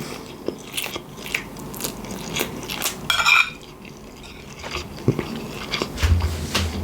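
Close-miked mouth sounds of eating spaghetti bolognese: wet chewing with many small clicks and smacks, and a louder burst about three seconds in.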